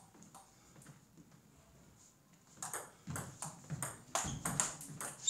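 Table tennis rally: the ball clicking off the paddles and bouncing on the table, a sharp click about three times a second. The first half is quiet with only faint taps; the run of hard strokes starts a little past halfway and grows louder toward the end.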